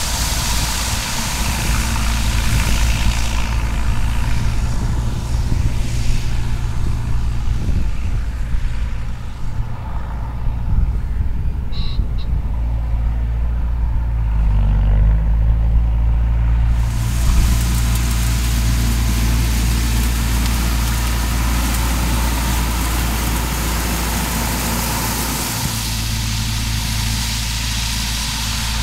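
1992 Bateman Hi-Lo 2001 self-propelled sprayer-spreader's diesel engine running steadily as it drives across a field, with the hiss of its spinning-disc spreader throwing fertiliser granules. The hiss drops away for several seconds mid-way and the engine note shifts briefly.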